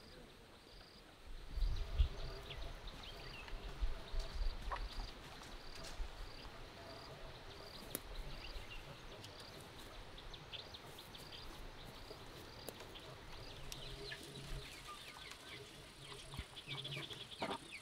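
An insect calling steadily, a short high pulse about twice a second, among scattered quick chirps. A burst of low thumping rumble comes between about one and five seconds in.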